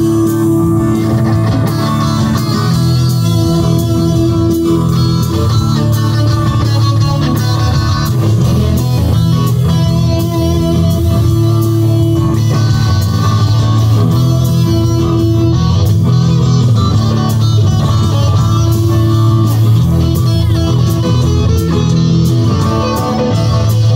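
Live rock music led by electric guitars played through amplifiers, loud and continuous, with no singing.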